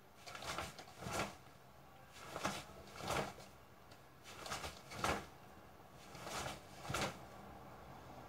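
A karateka's forceful breathing as he throws punches: four pairs of short, noisy breaths about two seconds apart, the second of each pair the sharper and louder.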